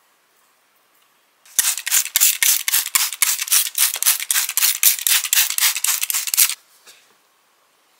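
Plastic trigger spray bottle pumped rapidly, about four or five squirts a second, misting water onto freshly sown seeds in potting soil. The spraying starts about a second and a half in and stops suddenly about a second and a half before the end.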